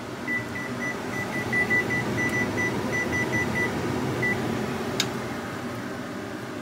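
Electric range's control-panel beeps as the kitchen timer is set: a quick run of short, high, identical beeps, about four a second, for some three seconds, then one more beep a moment later. A single sharp click follows about five seconds in.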